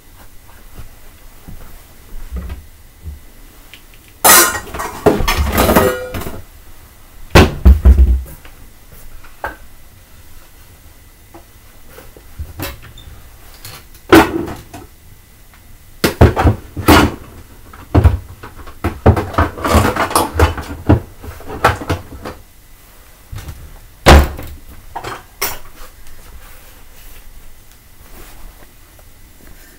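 Dishes being handled: plates and crockery clattering in irregular bursts, with a few heavy knocks, the loudest about eight seconds in and again near twenty-four seconds.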